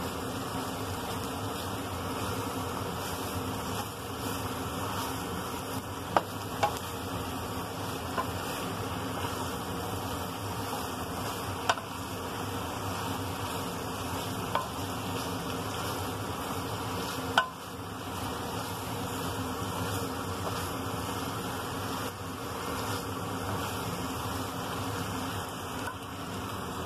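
Steady buzzing hiss from a squid-ink stir-fry of squid, chicken, cabbage and shirataki being cooked and stirred in a frying pan. A few sharp clicks from the wooden chopsticks knocking against the pan.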